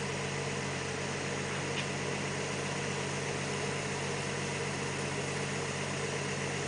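Steady drone of running machinery: a low engine-like hum with a hiss over it, unchanging throughout.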